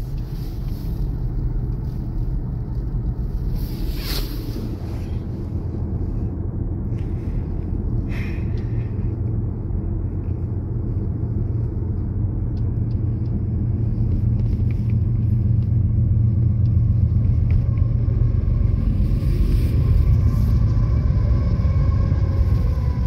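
Road noise inside a moving car's cabin: a steady low rumble of tyres and engine, with brief knocks about four and eight seconds in. Faint steady tones come in near the end.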